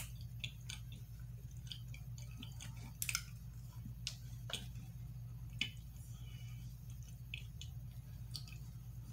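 A person chewing a soft, chewy cookie with the mouth closed: scattered soft clicks and smacks at irregular intervals, over a steady low hum.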